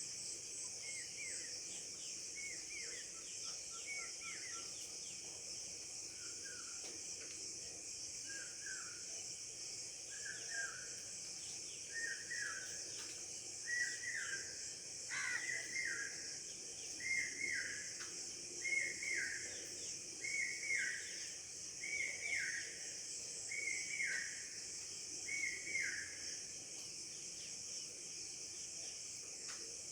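Steady high-pitched chirring of insects, with a bird repeating a short falling call about every second and a half, growing louder and then fading near the end.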